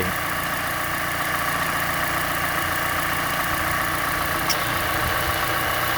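Mazda CX-5's four-cylinder engine idling steadily while its air conditioning is charged with refrigerant. A light click about four and a half seconds in, an extra sound where something engaged.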